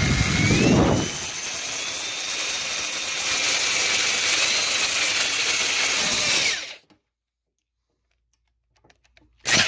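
Electric drill boring through quarter-inch aluminum flat bar, the motor whining steadily as the bit cuts, then stopping abruptly about seven seconds in. A short knock near the end.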